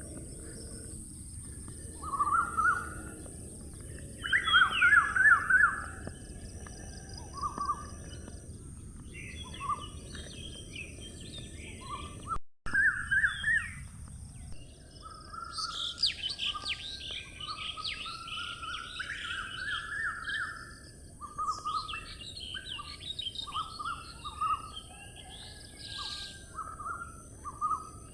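Several songbirds singing and chirping in short, overlapping repeated phrases, over steady background noise. The sound cuts out briefly about twelve seconds in.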